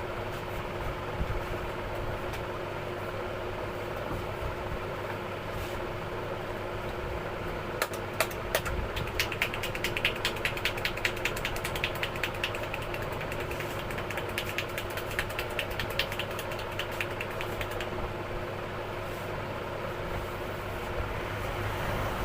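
Hands slapping and tapping during a head massage: a run of sharp taps, about two or three a second, starting about a third of the way in and lasting about ten seconds. Under it runs a steady mechanical hum.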